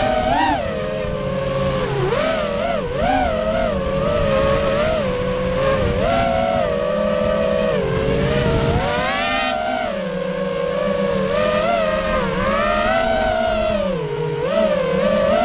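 FPV quadcopter's brushless motors and propellers whining, heard from the camera on board, the pitch constantly rising and falling with throttle changes. About nine seconds in there is a sharp rising sweep as it punches up, under a low rush of prop wash and wind.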